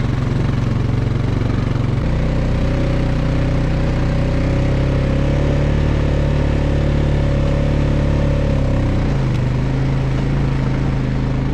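An engine running steadily and loudly, shifting to a slightly different pitch about two seconds in and back again near the end.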